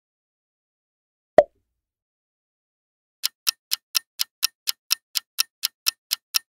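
A stopwatch ticking sound effect counts down at about four ticks a second, starting about three seconds in. A single sharp click comes about a second and a half in, louder than the ticks.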